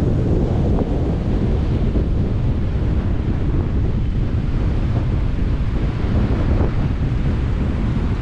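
Strong wind buffeting the microphone, a steady low rumble that covers everything else.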